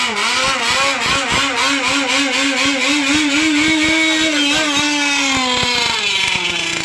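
Small two-stroke RC boat engine running at high speed, its pitch wavering constantly, rising slightly through the middle and then falling near the end.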